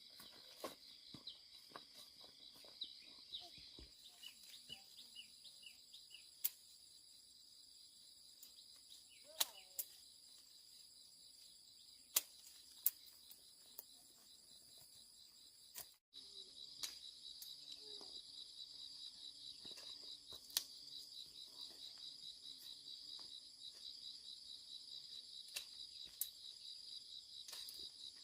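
Steady high-pitched trilling of crickets, with scattered sharp clicks and snaps. The trill cuts out for an instant about halfway through and returns a little louder.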